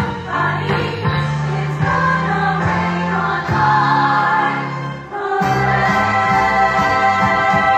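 Show choir singing over instrumental accompaniment, with a brief drop in the music about five seconds in before it carries on with held chords.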